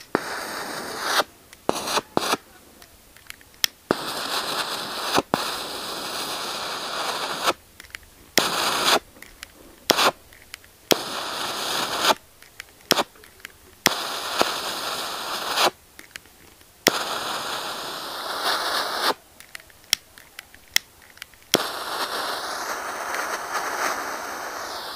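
Long-nosed gas lighter clicked on and off repeatedly at a syringe needle, each press giving a second or few of hissing, crackling gas flame before it cuts off, as it tries to light acetylene from calcium carbide and water. The gas keeps failing to catch, which the experimenter puts down to too much air in it. Near the end a steadier hiss runs on.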